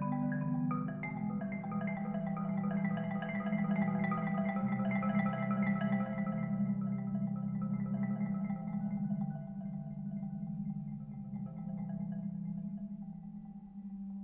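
Solo concert marimba played with four mallets: a sustained low register under quick runs of higher notes. The upper notes thin out and the playing grows quieter after about nine seconds.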